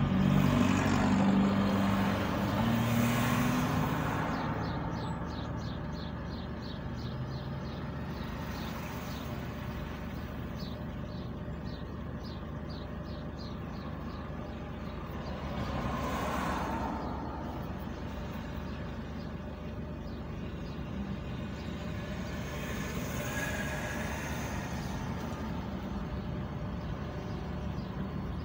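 Road traffic at an intersection: a steady hum of idling and passing cars. The loudest pass is at the start, with smaller ones about 16 and 23 seconds in.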